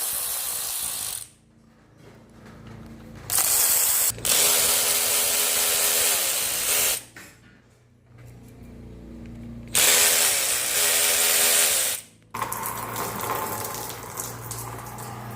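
Power ratchet running in short bursts of a second or a few seconds with pauses between, undoing the bolts of a transmission oil sump pan. A quieter steady sound follows near the end.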